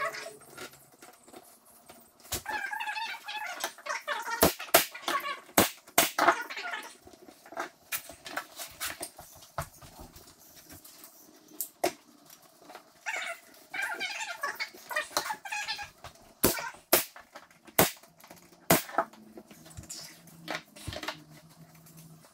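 Pneumatic brad nailer firing sharp shots while beadboard is nailed to a cabinet end panel: a few shots about four to six seconds in and several more about sixteen to nineteen seconds in. Quieter squeaks and clicks fill the gaps between the shots.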